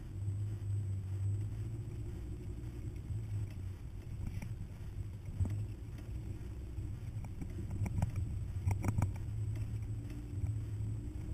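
Hummer driving slowly over a rough desert dirt track: a steady low engine and road rumble, with scattered knocks and rattles from bumps that cluster about eight to nine seconds in.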